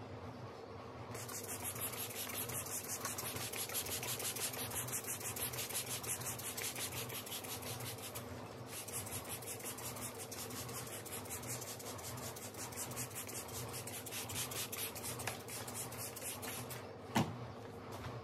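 Plastic hand spray bottle misting water onto seed-starting trays: a fine, rapidly pulsing hiss of spray that pauses briefly around eight seconds in, then a single sharp knock near the end.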